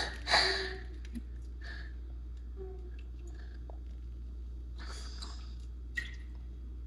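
Kitchen handling noises over a steady low hum: a short noisy clatter about half a second in, a light click near one second, a brief rustle around five seconds, and a sharp click at about six seconds.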